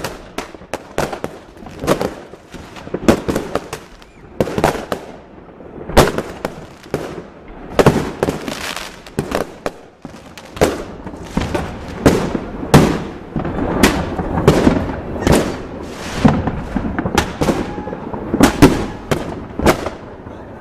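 Fireworks going off at night: many sharp bangs and pops in irregular succession, sometimes several close together, each with a short echoing tail.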